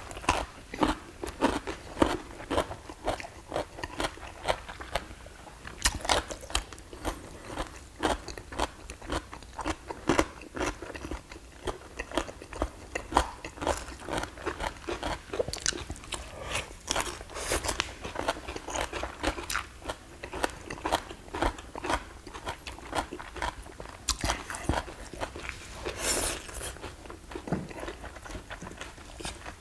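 Two people chewing and crunching mouthfuls of Korean home-cooked food close to the microphone, with sharp clicks from chopsticks against plates and bowls.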